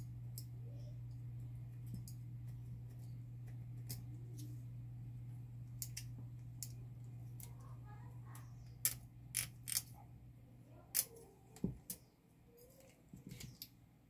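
Small pointed metal tool clicking and scraping against a hair dryer's speed-switch contacts as they are cleaned: scattered light clicks, with a cluster of sharper ones in the second half. A low steady hum sits underneath and stops near the end.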